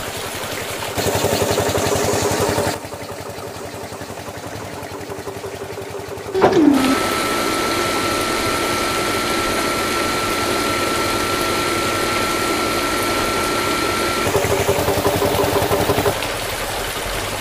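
Small electric motors of a homemade toy car-wash rig and its mini water pump whirring steadily, the sound shifting abruptly in level and pitch several times. From about six seconds in a thin steady whine runs over the whirring, with water spraying, until about fourteen seconds in.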